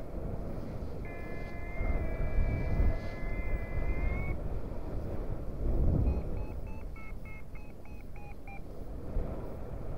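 Paragliding variometer sounding: a steady high tone for about three seconds that rises slightly at its end, then a quick run of about nine short beeps, a little over three a second, signalling climb in broken thermal lift. Wind rumble on the microphone runs underneath.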